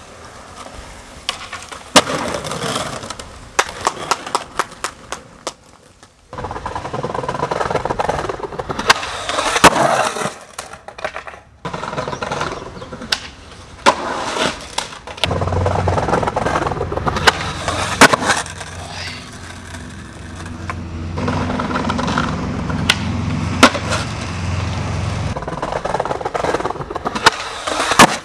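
Skateboard wheels rolling on concrete and asphalt, with many sharp pops and clacks from the board's tail and from landings during flatground tricks. A low steady hum comes in about halfway through and stops a few seconds before the end.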